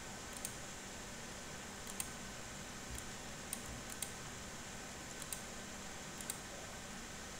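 Several faint, irregular clicks, like computer keys or mouse buttons, over a steady low hiss of microphone and room noise.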